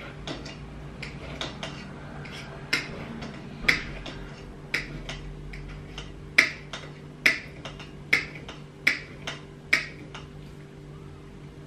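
Kitchen knife clicking against a china plate as beef is cut into cubes: a string of sharp, irregular clicks, about one or two a second.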